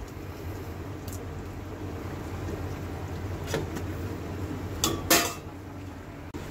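A few light clinks of a metal ladle in a wok, then a glass pot lid set down on the wok with a clatter just after five seconds in, over a steady low hum.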